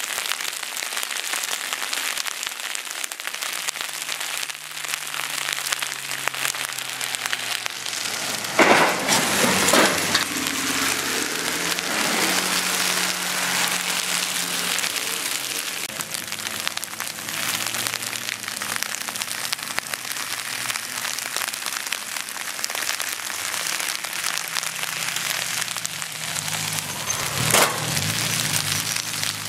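Heavy rain and sleet hissing steadily on a wet race track while race car engines drone past, rising and falling. A loud burst of cracks and bangs comes around nine seconds in, and near the end a single sharp bang sounds as a BMW race car slides into the steel guardrail.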